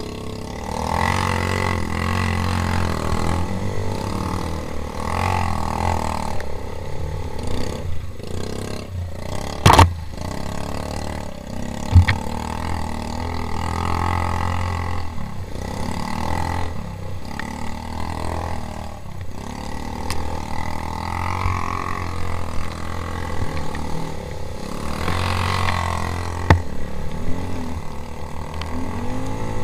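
A four-stroke quad bike (ATV) engine running on a muddy trail, its note rising and falling with the throttle, with two sharp knocks about ten and twelve seconds in.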